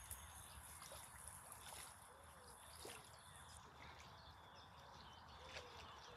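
Near silence: faint outdoor ambience with a few soft clicks.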